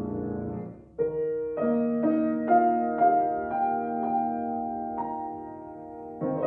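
Yamaha grand piano played solo: a held chord dies away, then about a second in a slow melody begins, notes struck roughly every half second over sustained lower notes and left to ring, easing off before a new chord near the end.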